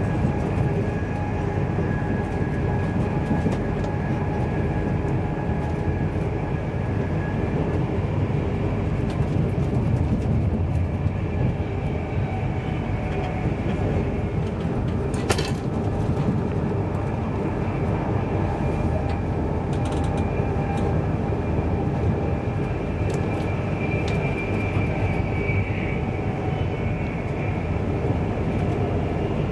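Steady running noise inside an InterCity 225's Mark 4 passenger coach at speed: a continuous low rumble of wheels on the rails with a faint steady hum above it. A single sharp click about halfway through.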